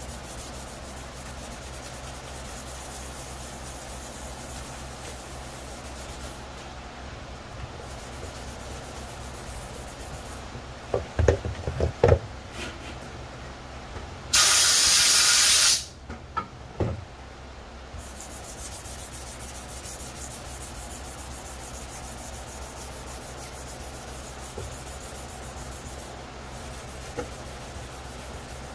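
A very fine sanding sponge rubbed by hand over a plastic helmet shell, a steady soft scrubbing that scuffs the surface ready for primer. A few knocks come in the middle, followed by one loud hiss lasting about a second and a half.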